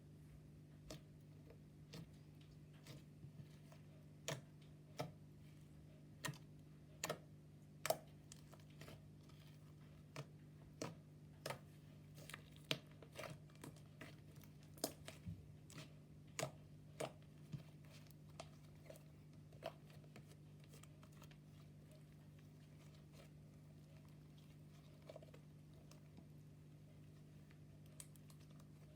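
Slime being pressed and worked by hand, giving sharp, irregular clicks and pops. The clicks come thick and fast through the first two-thirds, then thin out to a few, over a steady low hum.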